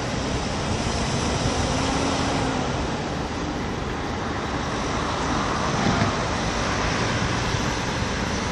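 Diesel engine of a loaded dump truck running as it drives away and passes below, heard over a steady din of port traffic and machinery.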